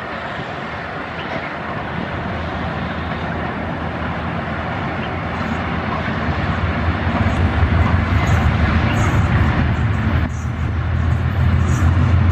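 Pakistan Railways AGE-30 diesel-electric locomotive approaching at speed with its passenger train. The rumble of the train on the track and the engine's deep drone grow steadily louder, and the drone is the loudest sound in the second half.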